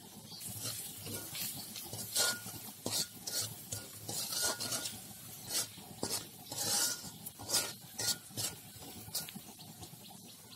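Stainless steel spoon scraping against a metal wok in a run of irregular strokes, stirring freshly added ground spices into onion and green chilies frying in oil. The strokes stop shortly before the end.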